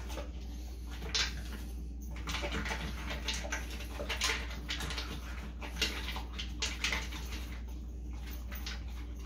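Dog eating from a plastic slow-feeder bowl: irregular crunching and clicking of food and muzzle against the bowl, busiest through the middle.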